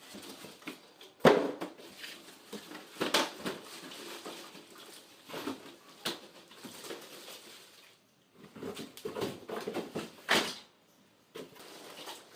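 Irregular knocks and thumps of objects being handled, the loudest about a second in, with a few short gaps of near silence.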